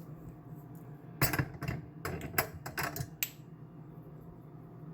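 Salt and pepper being added to a crockpot: a quick run of small clicks and clatters lasting about two seconds, starting about a second in.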